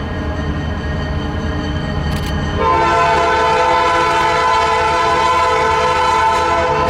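Diesel locomotive air horn sounding a long, steady chord over the low rumble of the train, getting clearly louder about two and a half seconds in.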